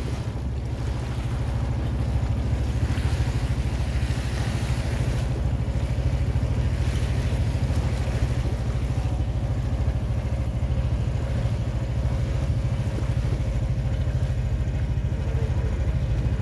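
Small tour boat's engine running steadily with a low, even throb, over a hiss of wind and water.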